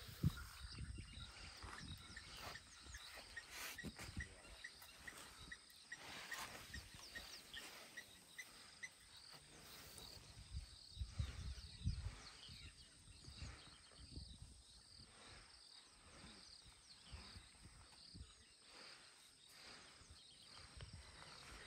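Faint outdoor bush ambience: a steady high drone of insects, with a short chirp repeating about twice a second from about two to nine seconds in. Underneath are soft low thumps and rumbles, loudest around eleven to twelve seconds in, and a sharp knock just after the start.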